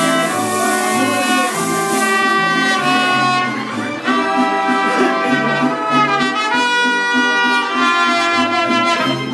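Mariachi band playing an instrumental passage: trumpets carry the melody over guitars and a pulsing bass line.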